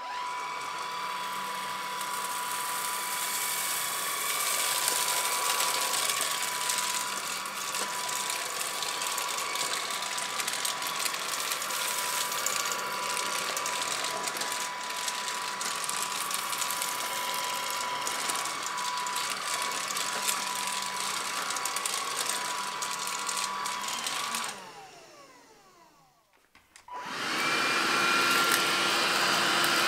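Bosch BBH214 14.4 V cordless 2-in-1 vacuum running steadily with a high whine while its floor brush sweeps over a tiled floor. About 24 seconds in the motor winds down with a falling whine. A few seconds later the detached handheld unit starts up with a different, higher-pitched whine.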